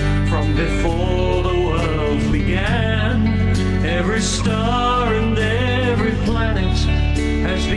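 Worship song: a sung melody over steady instrumental accompaniment.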